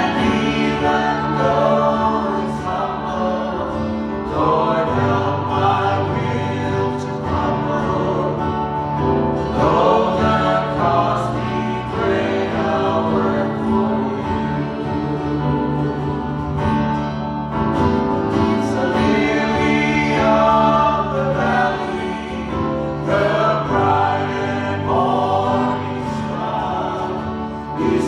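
Gospel worship music: a choir or group of voices singing over instrumental backing with a steady bass.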